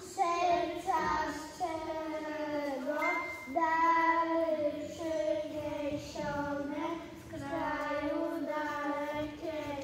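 A young child singing a song, in a string of short held notes with a break roughly every second.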